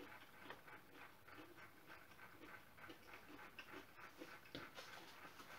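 Near silence with faint, irregular clicks and smacks of a man chewing a mouthful of crunchy fried chicken.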